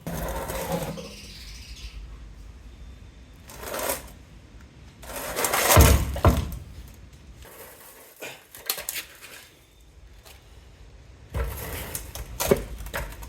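Transmission on a jack being slid back out from under the truck: intermittent metal clanks and scrapes, the loudest a heavy knock about six seconds in, with a run of small clicks a little later.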